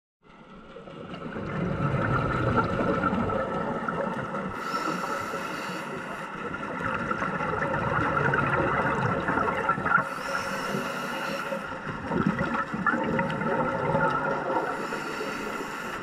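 Underwater sound of scuba breathing through a regulator, with a hiss of breath about every five seconds, three times. Under it runs a steady underwater hum.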